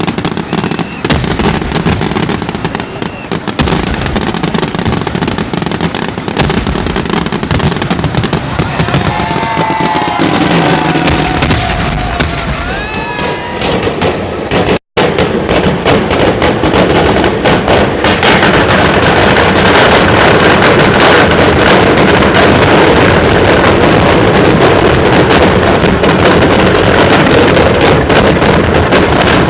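Fireworks and firecrackers going off in a dense, rapid crackle, with a few short whistles between about 9 and 13 seconds. The sound breaks off suddenly about 15 seconds in, then returns as a louder, continuous crackle from about 18 seconds.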